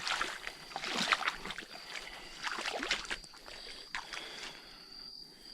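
Shallow creek water sloshing, with irregular small splashes and crackles among floating debris that thin out near the end. Over it runs an insect's steady high trill.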